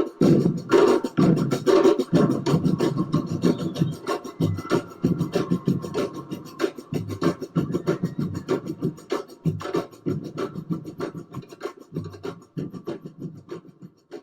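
Music with a steady beat that starts loud and fades gradually lower toward the end, as a volume envelope turns it down.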